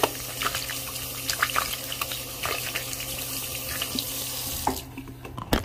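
Water running from a tap while hands are washed under it, with small splashes and clicks. The water stops about a second before the end, followed by a sharp knock.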